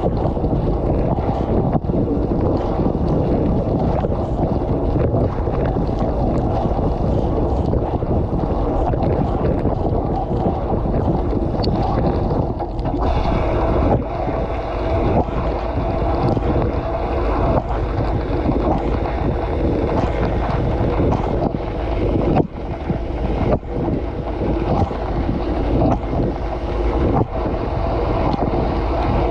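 Dishwasher spray arms jetting water over the dishes and onto the GoPro inside the tub, heard from within the machine: a dense, steady rush of water with irregular sharp hits of spray striking the camera. The spray briefly slackens a little past two-thirds of the way through, then picks up again.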